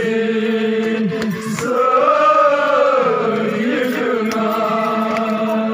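Men's voices chanting together in unison, sustained notes with one long phrase that rises and falls in the middle.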